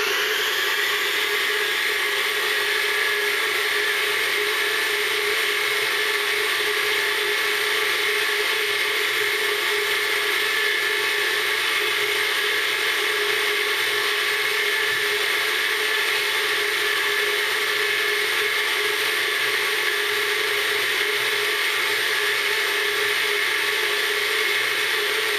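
BF20L Vario benchtop milling machine running steadily at 3200 rpm, its end mill taking a light hand-fed climb-milling side cut along 6061 aluminium. A steady whir with no change in level.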